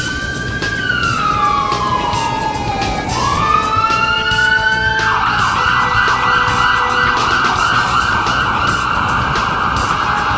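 Electronic emergency-vehicle siren: a slow wail that rises and falls twice, then switches about five seconds in to a rapid yelp.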